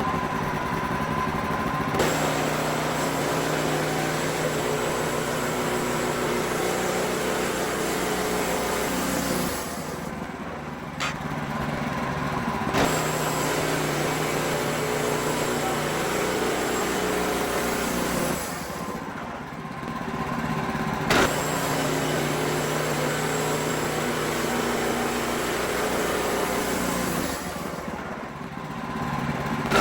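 WoodMizer LX55 band sawmill running steadily as its blade cuts boards from a pine log. The sound eases briefly three times, about ten, nineteen and twenty-eight seconds in.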